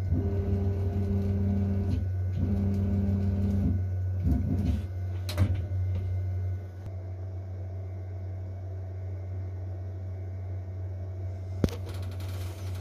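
A 6040 CNC router runs with a steady low hum. Its stepper motors give two stretches of steady pitched whine over the first four seconds, with a short break between them. The machine goes quieter about six and a half seconds in, and a single sharp click comes near the end.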